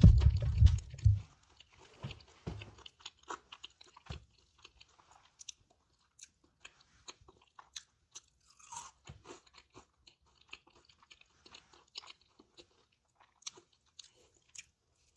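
Close-miked chewing of a crispy fried chicken sandwich: crunching bites and wet mouth clicks. It is loudest and heaviest in about the first second, then settles into scattered soft crackles and clicks.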